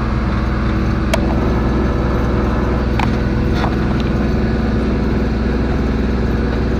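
Kubota diesel engine running steadily as it pushes a snow plow through deep snow, with a few light clicks about one and three seconds in.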